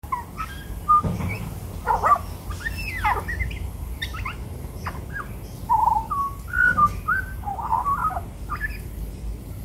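Australian magpie calling: a string of short whistled notes and quick up-and-down warbling sweeps, with brief pauses between phrases.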